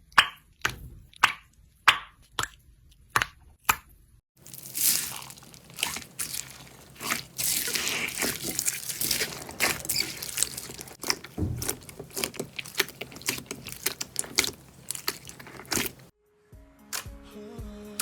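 Slime being handled for ASMR: sharp popping clicks about twice a second, then a long stretch of dense crackling and squishing. Near the end it cuts abruptly to music with thumping beats.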